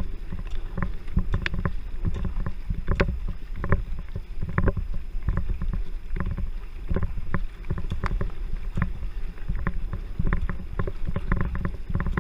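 A racing canoe being paddled hard: water splashing and slapping around the hull with many short knocks, several a second, over a low steady rumble of water and wind on the boat-mounted microphone.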